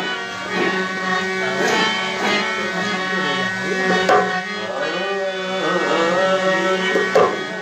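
Harmonium playing over a steady reed drone, with scattered dholak strokes and a man singing along in a wavering melodic line.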